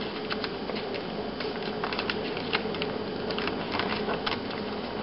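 A sheet of paper being folded and creased by hand: scattered short crackles and rustles over a faint steady background hum.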